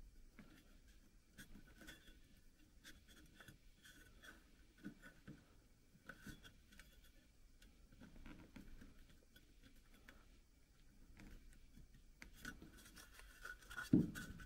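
Faint rubbing and scratching of a rubber grommet being worked by hand into a hole in a plastic air cleaner housing, with scattered small clicks; the hole is a little too small for the grommet. A louder knock comes near the end.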